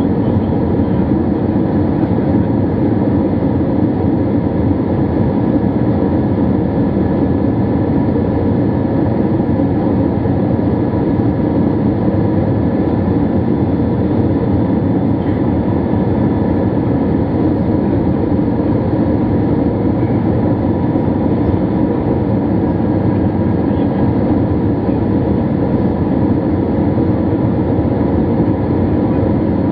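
Steady cabin noise inside an Airbus A321 descending on approach, heard from a window seat over the wing: the drone of the engines and the rush of air over the fuselage, with a faint high whine on top.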